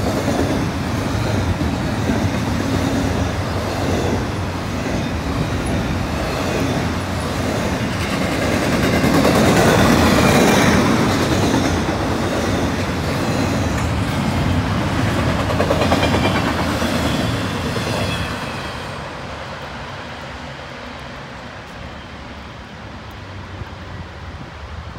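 Double-stack intermodal freight cars rolling past at speed: steady wheel-on-rail noise, swelling a little midway, then dying away near the end as the last cars pass.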